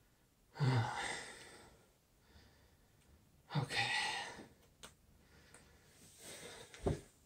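A man's heavy sighing exhalations, out of breath from exercise: two long breaths out, about three seconds apart. Near the end, a low thud as he drops toward the floor.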